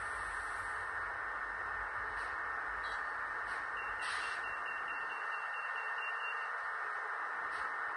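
Steady, even hiss from a stationary N-gauge model electric locomotive's sound decoder, its idle running sound played through the tiny onboard speaker, with a faint thin tone in the middle.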